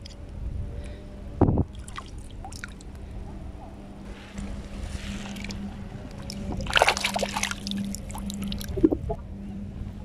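Shallow seawater sloshing and splashing as a hand reaches in among seagrass, with the loudest splashing about seven seconds in. A steady low hum runs underneath, and there is a brief thump about a second and a half in.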